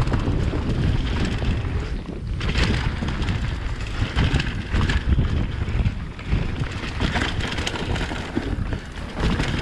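Wind buffeting the microphone while a mountain bike rolls fast down a leaf-covered dirt trail, with the tyres running over dry leaves and frequent knocks and rattles as the bike hits bumps.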